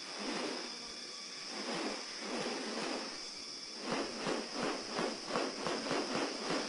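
Rainforest ambience: a steady high hiss with swells of rustling noise, then, about four seconds in, a run of rapid rhythmic pulses at roughly three a second.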